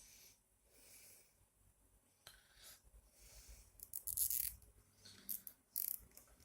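Faint handling noises with short rasps of a nylon cable tie being pulled tight around a toothed drive belt, loudest about four seconds in and again near the end.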